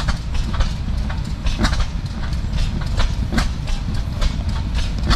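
An old engine running at a slow idle: a steady low rumble with a sharp exhaust beat about three times a second.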